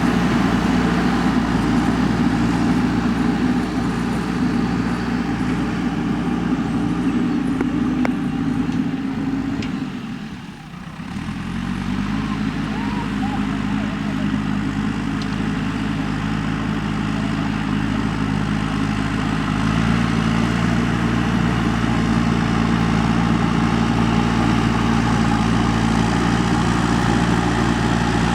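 JCB 3DX backhoe loader's diesel engine running with a steady low drone. About ten seconds in it briefly drops away, then comes back up with a rising pitch, and it grows louder again about two-thirds of the way through.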